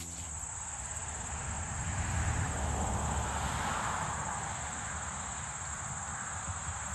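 Steady high-pitched chirring of insects such as crickets, over a broad rushing noise with a low rumble that swells to its loudest two to four seconds in and then eases off.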